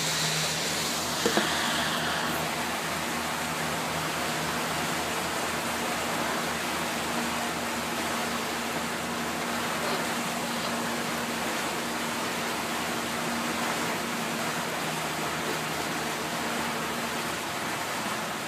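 Motorboat under way, heard from inside its enclosed cabin: a steady rush of water and wind over a low, even engine hum. Two short clicks about a second in.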